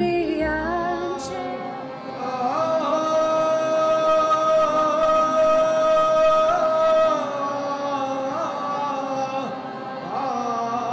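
Wordless chant-style singing by a man's voice: after sliding ornaments it holds one long wavering note for several seconds, then slides on again. At the very start a plucked-string and upright-bass song cuts off.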